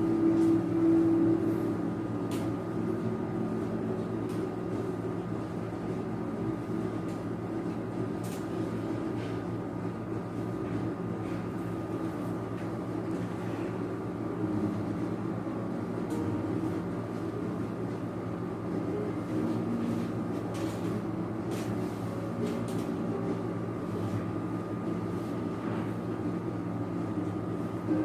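Steady machine hum with a thin high whine above it and a few faint ticks.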